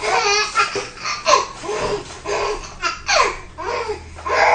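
A baby laughing hard, in a string of short bursts that each fall in pitch.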